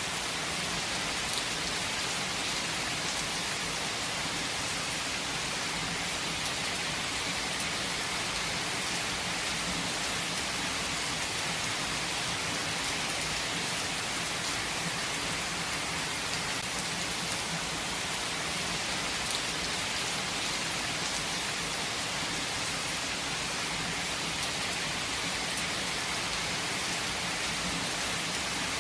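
Steady rain falling, an even hiss with faint scattered drop ticks and no change in strength.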